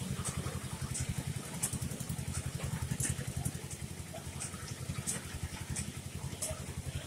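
An engine idling with a steady low throb, with short high-pitched chirps now and then over it.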